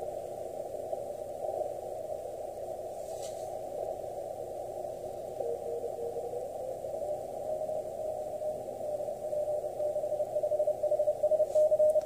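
Icom IC-7300 receiver audio on 20-meter CW: band hiss heard through the narrow CW filter, with a weak Morse code signal's tone keying on and off. The Morse tone gets louder over the last couple of seconds. The signal is too weak to register on the S meter.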